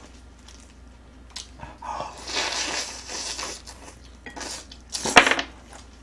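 Close-miked eating: a noisy slurp and chewing of a mouthful of braised aged kimchi and rib, with a short, loud clatter of chopsticks against the dishes about five seconds in.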